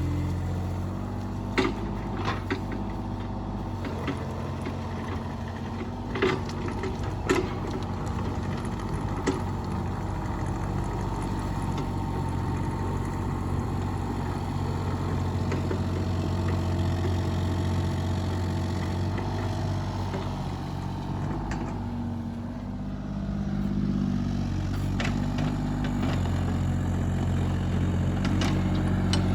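Mini excavator's diesel engine running steadily, with several sharp metallic clanks in the first ten seconds and one more near the end. The engine dips briefly a little past the two-thirds mark, then picks up again.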